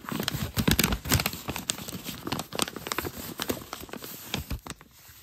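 Small kraft-paper envelope being cut open and handled: irregular paper crackling and rustling with many sharp clicks, thinning out near the end.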